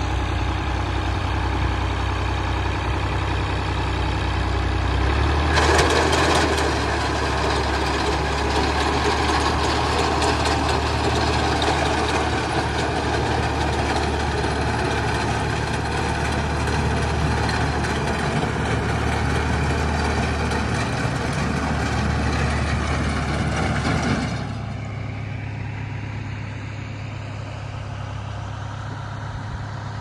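Tractor's diesel engine running steadily while its front-mounted reaper cuts wheat, getting louder about five seconds in. Near the end it gives way abruptly to a quieter steady hum.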